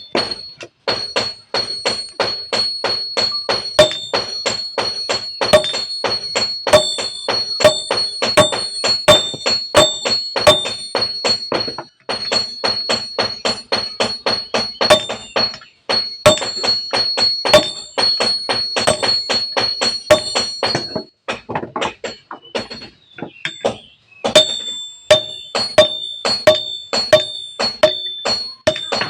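Blacksmith's hammer striking steel on an anvil in a fast, steady rhythm of about three ringing blows a second while forging a crowbar. The blows thin out about three quarters of the way through, then pick up again.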